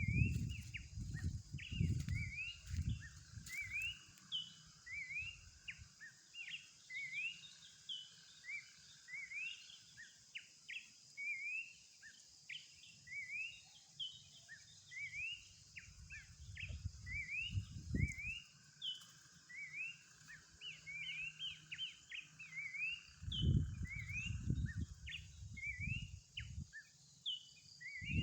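Horsfield's babbler (pelanduk semak) singing continuously: a long run of short, quickly rising whistled notes, about two a second, over a steady high hiss. Low rumbles come and go near the start, in the middle and near the end.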